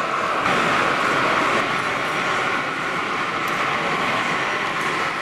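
Steady background noise of a busy exhibition hall, with model trains running on the layouts among it.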